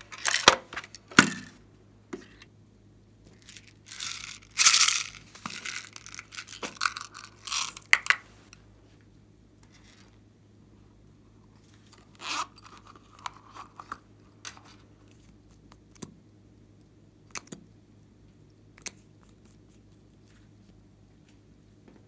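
Small plastic beads and sprinkles rattling and spilling out of a plastic toy case onto slime, with clicks and scrapes of the case being handled. The dense rattling bursts fill the first several seconds. A few scattered clicks and one short scraping burst follow, then quiet.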